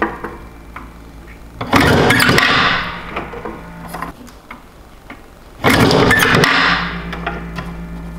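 Omega Uno grafting machine cycling twice, about four seconds apart. Each cycle is a burst of noise about a second long, near two seconds in and again near six seconds, and a low steady hum runs after the second one.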